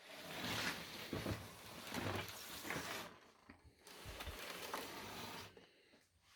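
Handling noise: two stretches of rustling and scraping, the first about three seconds long and the second about a second and a half long after a short pause.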